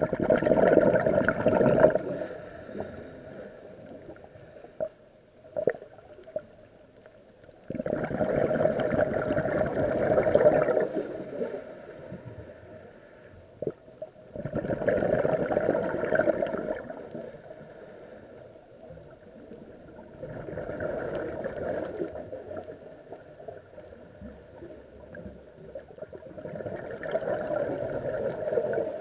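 Scuba diver breathing through a regulator, heard underwater: a gurgling rush of exhaled bubbles about every six seconds, five times, each lasting two to three seconds, with quieter stretches and a few faint ticks between.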